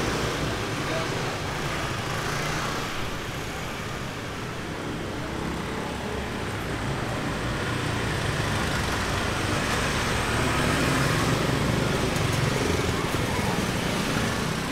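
Small motor scooters running past in a narrow lane. The engine noise swells to its loudest past the middle as a pair of scooters rides by close.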